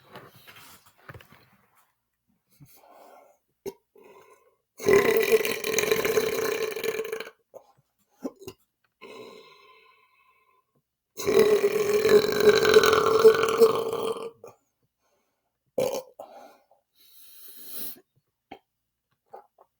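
A man's forced, loud belches: two long burps, each lasting two to three seconds, with a steady low pitch and a rasp.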